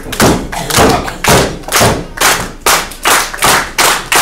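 A fast, steady run of loud thuds and slaps in the wrestling ring, about three a second, each one ringing briefly in the hall.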